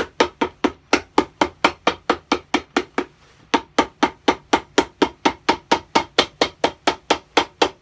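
Cobbler's hammer beating a freshly glued leather sole down onto a boot on a last, a quick even rhythm of about four blows a second with a short break about three seconds in.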